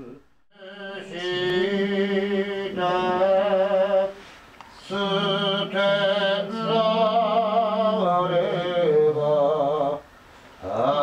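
Japanese Buddhist chanting of wasan hymn verses in long, drawn-out sung phrases, breaking off briefly about four seconds in and again near the end.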